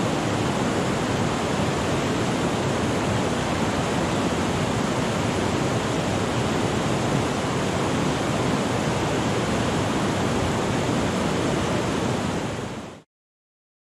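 Whitewater rapids rushing steadily over boulders, an even, unbroken noise of churning water that fades out about a second before the end.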